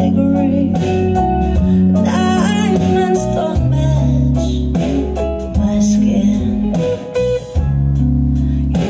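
A song with guitar and singing over a heavy bass line, played as a listening test of a BYD Dolphin's upgraded Powerbass speaker system.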